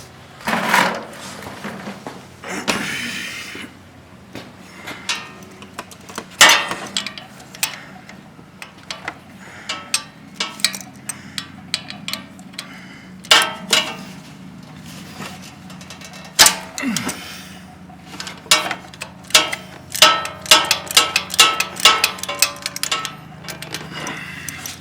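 Hand tools clinking and clicking against metal as bolts on the ATV's frame are loosened: scattered sharp knocks and scrapes, with a quick run of clicks near the end.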